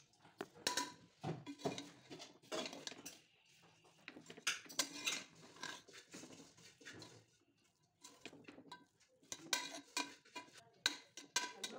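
A spatula scraping and knocking against a cooking pot while cooked biryani rice is mixed. There are irregular clinks and scrapes, with a quieter pause a little past the middle.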